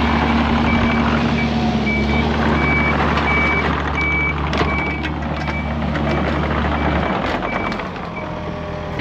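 Reversing alarm on heavy equipment beeping steadily, about one and a half beeps a second, over a running engine. The engine's low hum drops away about seven seconds in, and the beeping stops about a second later.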